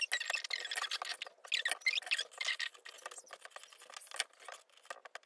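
Scissors cutting through folded hemp cotton fleece: a run of repeated, irregular snips with the blades rasping through the thick fabric.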